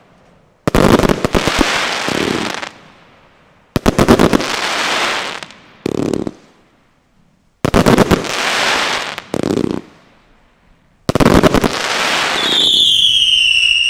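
Zeus Fireworks 'Retribution' 25 mm compound firework cake firing four volleys, each a rapid cluster of launch reports followed by crackling star breaks. Near the end, over the last crackle, a loud high whistling tone comes in and holds, falling slightly in pitch.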